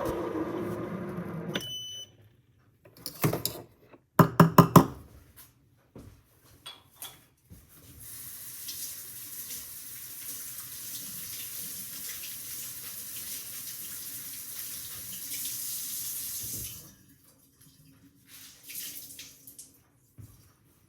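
Espresso machine: a pulsing buzz stops about two seconds in with a short beep, a few sharp knocks follow, then the steam wand hisses steadily for about nine seconds and cuts off.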